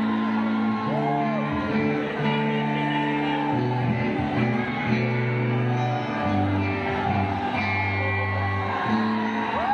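A live band playing on stage, with guitars and drums over a bass line that steps between held notes.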